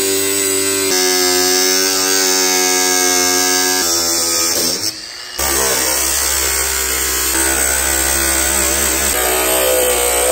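Cordless angle grinder cutting through a water heater's sheet-metal outer jacket, its motor whining steadily with the pitch shifting under load. It lets up briefly about five seconds in, then cuts on.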